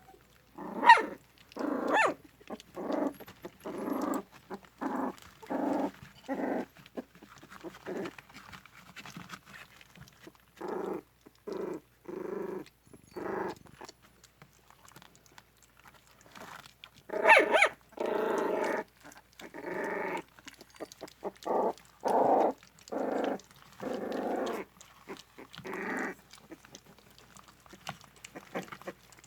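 Puppies making short growls and whimpers, about one or two a second, while they crowd over their first meal. A louder cluster of calls comes about two-thirds of the way through.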